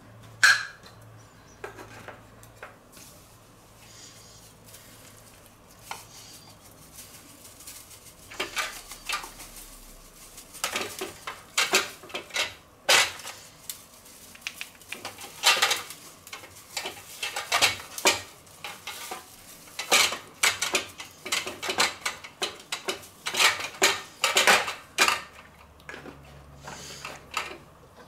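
Spice shakers rattling and clinking over a raw chicken in a stainless steel roasting tray, with knocks of the metal tray as the bird is handled. The short, irregular clatters are sparse at first and come thick and fast from about eight seconds in.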